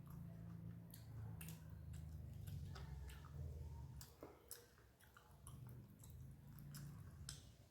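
A person eating a rice meal close to the microphone: soft chewing with scattered small mouth clicks and smacks, over a faint low steady hum.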